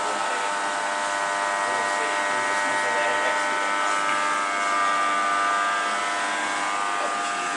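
Induction bearing heater humming steadily as it heats a deep groove ball bearing on its yoke: an even electrical buzz made of several steady pitches.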